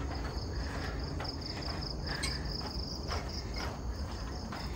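Steady, high-pitched insect trill from the forest, pulsing rapidly without a break, over a low rumble.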